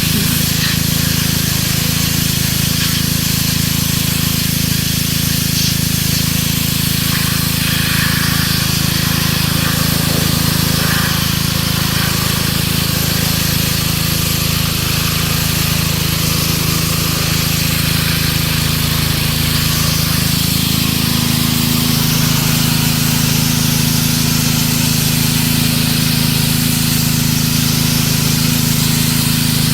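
Gas-engine pressure washer running steadily, its engine hum under the constant hiss of the water spray; the engine note shifts slightly about two-thirds of the way through.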